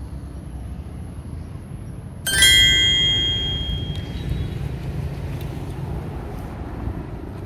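A small metal bell rings once, sharply, about two seconds in and fades out over a second or so, over a steady low rumble of wind on the microphone.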